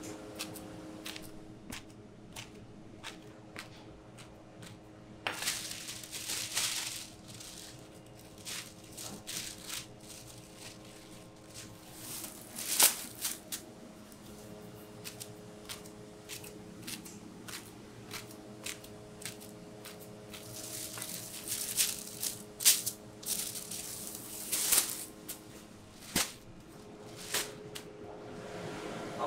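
Plastic sheets rustling and crinkling as they are handled over sheets of dough, with many irregular light clicks and taps, the sharpest rustles about 13 and 23 seconds in. A steady low hum runs underneath.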